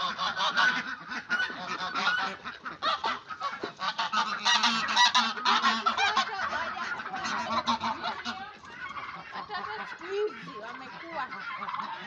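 A mixed flock of domestic poultry (ducks, geese, turkeys and guinea fowl) calling all at once at feeding time, many overlapping calls and squawks; the din is loudest a few seconds in and thins out somewhat after about eight seconds.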